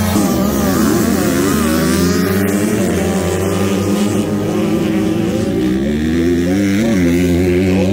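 A field of motocross dirt bikes revving at the start line and accelerating away together, several engines overlapping, their pitches rising and falling as the riders shift and pull off.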